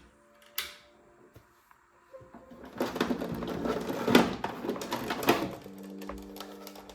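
Pfaff tipmatic 6110 sewing machine running for about three seconds, a fast, dense mechanical rattle that starts a few seconds in and stops abruptly. A single click comes shortly before it, and faint background music comes back at the end.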